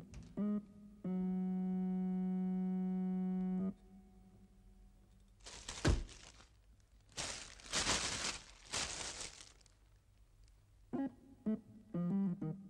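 Electric keyboard music with short notes and then one long held note stops. It is followed by about four seconds of crackly rustling in several bursts, like plastic wrapping being crumpled and torn off, with a single thump early in it. Plucked music notes start again near the end.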